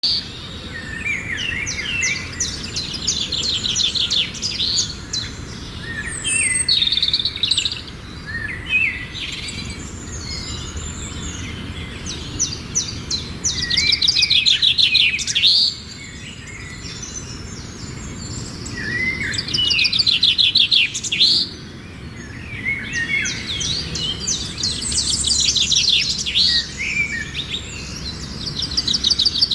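Songbirds singing and chirping, with repeated rapid trilled phrases every few seconds among assorted chirps, over a steady low background hum.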